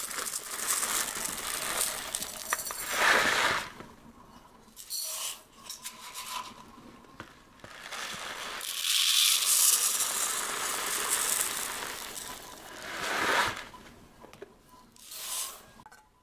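Kitchen food-preparation noises: scraping and rustling handling sounds that swell and fade several times, the loudest about three seconds in and again around ten and thirteen seconds.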